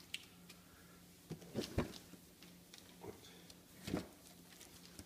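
Wrapping paper being torn and crinkled by a small child's hands as she unwraps a present: a few short, scattered rips and rustles.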